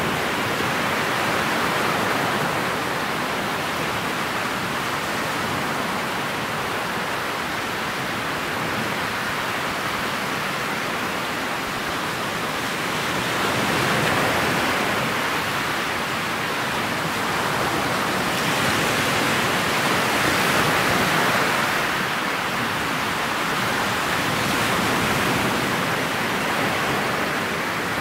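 Steady rushing of wind and water past a moving motorboat's bow, heard through the boat-mounted camera's microphone. It swells and eases a few times.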